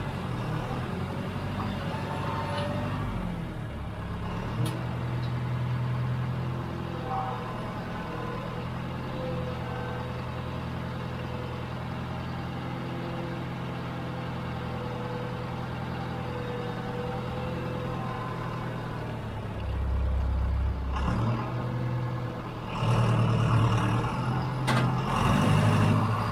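John Deere 410 backhoe's diesel engine running steadily while the machine works, the engine note changing about twenty seconds in and getting louder over the last few seconds.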